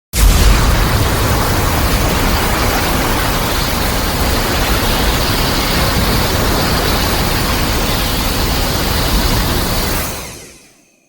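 Shin Godzilla film sound effect: a loud, dense rushing noise over a deep rumble that cuts in suddenly, holds steady for about ten seconds, then fades out.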